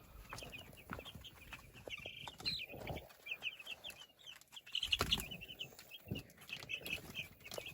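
A flock of young chickens peeping and chirping, many short high calls overlapping in quick succession, with a few soft knocks about five seconds in.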